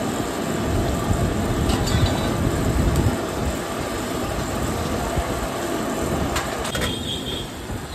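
Steady roar of a busy commercial kitchen, with oil sizzling and spices frying on a large flat iron tawa over a gas flame, and a few light clanks.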